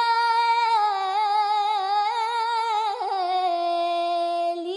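A female voice singing unaccompanied, holding one long wavering note that steps down in pitch about three seconds in and stops near the end.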